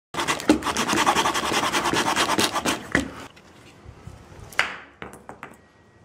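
Small saw blade of a Leatherman Rebar multi-tool cutting through a wooden branch in quick back-and-forth rasping strokes for about three seconds. Then a sharp knock about four and a half seconds in as the cut-off piece comes away, and a few light clicks.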